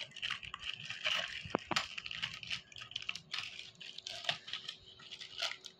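Plastic courier mailer bag crinkling and tearing in irregular crackles as a metal fork is jabbed and pried through it to rip it open.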